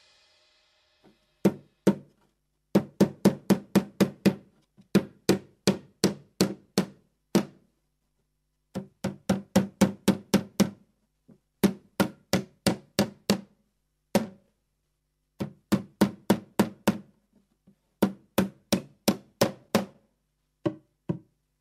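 Hammer driving nails into a wooden board: quick runs of sharp blows, about three or four a second, broken by short pauses.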